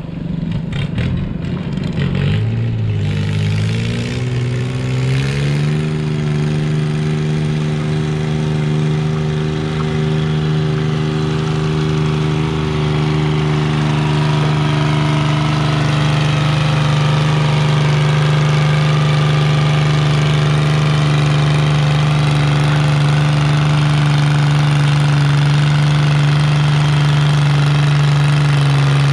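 Stock garden tractor engine revving up over the first few seconds, then held at one steady full-throttle pitch under load as the tractor drags a stoneboat pulling sled. It grows slowly louder as the tractor comes closer.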